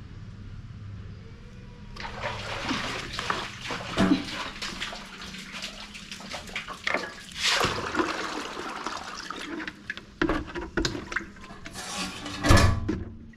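Water splashing and pouring while a water container is filled, with knocks and clatters from the container, the loudest thumps about four seconds in and near the end.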